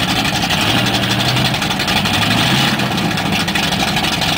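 Mud truck's 468 big-block V8 running steadily at low revs as the lifted pickup creeps through a mud hole.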